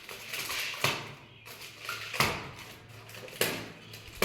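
A parcel's packaging being handled and torn open: rustling, with four sharp knocks or clicks spread about a second apart.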